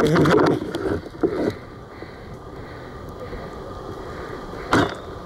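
Rustling and handling noise as a rifle-mounted camera swings through brush, going quiet about a second and a half in while the rifle is held on aim, then one short sharp crack near the end: a spring-powered Tokyo Marui VSR-10-type airsoft sniper rifle firing.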